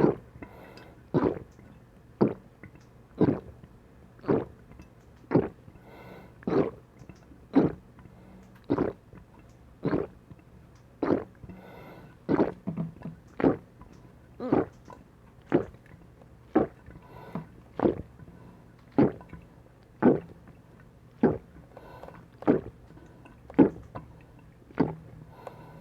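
A person gulping sikhye, a Korean sweet rice drink, in a steady run of swallows, about one gulp a second, while downing 1.3 litres in one go.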